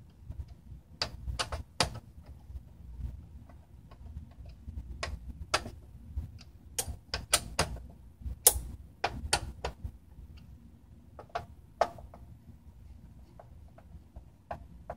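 Sharp, irregular metallic clicks and taps of a screwdriver working screws on a fat PS3's metal shield plate, over a faint low rumble of handling.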